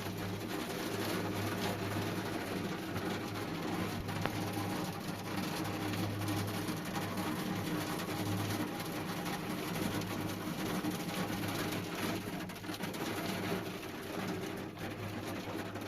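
Steady rain falling, an even hiss of many small drops, with a low steady hum beneath it.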